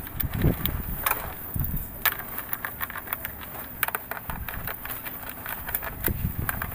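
Socket ratchet clicking in quick runs as it drives the 10 mm engine-cover bolts back in, with a few dull knocks of handling.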